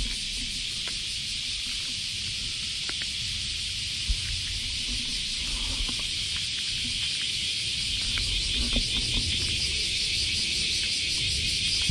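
A steady chorus of summer cicadas, a high hiss with a fast shimmer that swells a little in the second half, over faint scattered crunches of a cat chewing dry kibble at a bowl.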